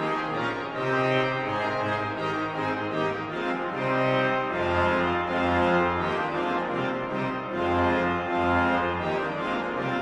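Slow organ music of held chords, with a deep bass note coming in about every three seconds.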